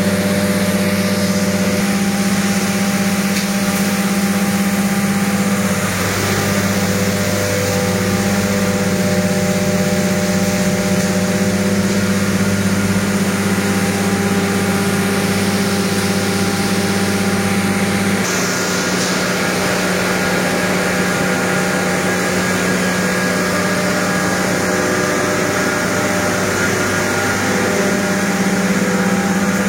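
An engine running steadily at constant speed, a loud even hum whose pitch shifts slightly about six seconds and again about eighteen seconds in.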